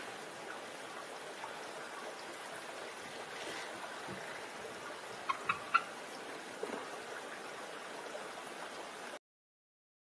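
Steady outdoor background hiss with three short, sharp bird chirps in quick succession a little past halfway, then the sound cuts off abruptly to silence near the end.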